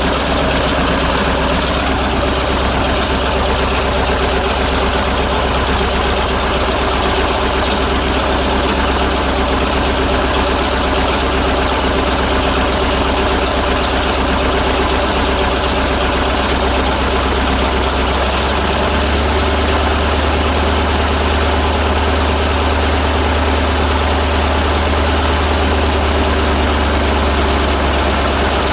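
1948 Buda 8-DC-1125 straight-eight diesel engine idling steadily. Its low rumble grows a little louder about two-thirds of the way through.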